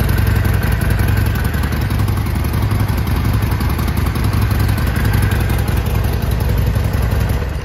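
2016 Harley-Davidson Sportster Forty-Eight's 1200 cc air-cooled V-twin idling steadily through its stock chrome exhaust, with an even low pulsing beat.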